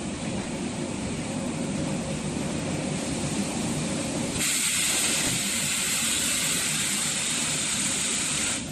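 Pulp molding thermoforming press running with a steady machine noise. About halfway in, a loud hiss of air or steam starts and cuts off suddenly near the end.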